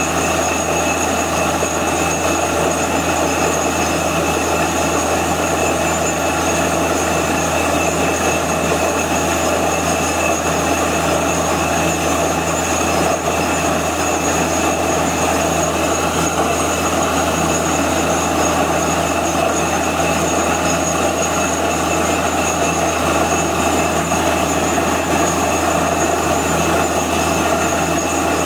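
Truck-mounted borewell drilling rig running steadily while it drills, with water and cuttings spraying out of the borehole around the drill pipe.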